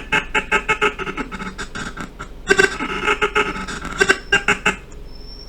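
Choppy, stuttering fragments of a recorded voice track, repeated several times a second as the Blender timeline is scrubbed frame by frame with audio scrubbing on; the chopping stops about three-quarters of the way through.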